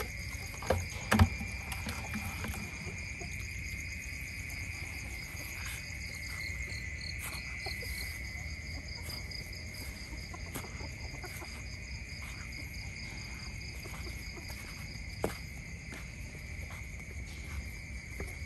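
Insects in the mangrove forest droning steadily at a high pitch, with a faster pulsing trill above it. Scattered soft clicks run through it, and there is a sharp knock about a second in and another near the end.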